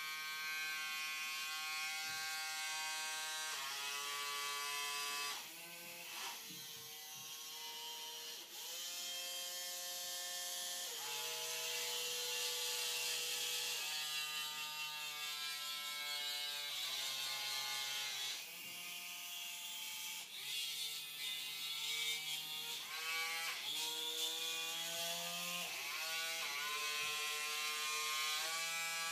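Small geared motors of a hobby robot arm whirring as its joints move, one whining tone giving way to another every second or few, each rising briefly as a motor spins up.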